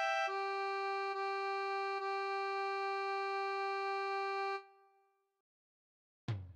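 Background music: a held chord of steady tones that stops about four and a half seconds in, then after a short silence a single low drum hit near the end.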